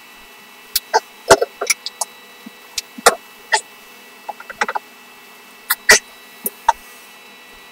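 Eating and table noises: irregular short clicks, taps and smacks from chopsticks, dishes and chewing, in small clusters about a second in, around three seconds and near six seconds.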